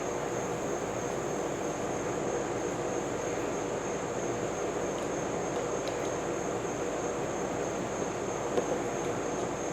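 Small gasoline lawn mower engine running at a steady speed.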